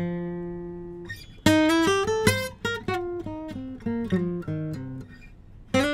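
1958 Martin D-28 acoustic guitar with Brazilian rosewood back and sides being played: a chord rings out and fades, then a run of single picked notes climbs and steps back down, and a new chord is struck near the end.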